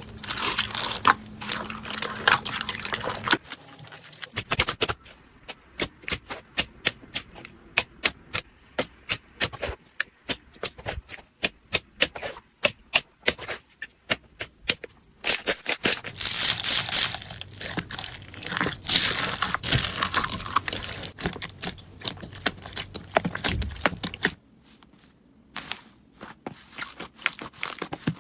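Slime being squeezed and kneaded by hand, crackling and crunching. In the middle comes a long run of sharp separate pops and clicks, a few each second.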